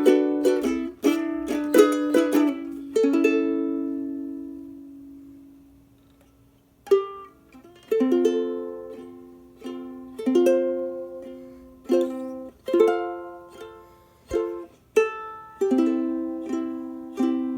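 1960s Kamaka Gold Label ukulele being strummed: a run of quick chords, then one chord left to ring and die away into a brief pause, before steady strumming resumes about seven seconds in.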